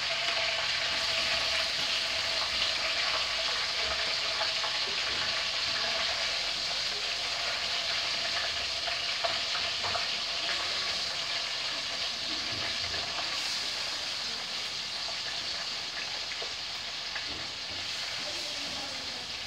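Chicken thigh and drumstick pieces frying in hot oil in a pot on a gas stove, a steady sizzle that eases a little toward the end as the meat browns and forms a crust.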